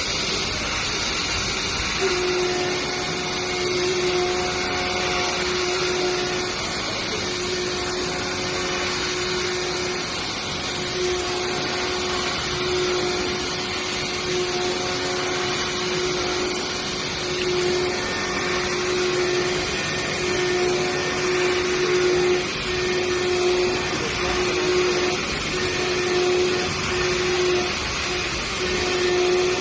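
Five-axis CNC machine profile milling: a steady hissing machining noise, with a steady cutting tone that sets in about two seconds in and breaks off briefly every few seconds as the tool moves along the profile.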